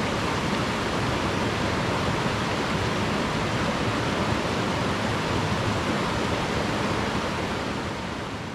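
Mountain creek rushing over rocks: a steady, even rush of water that fades out near the end.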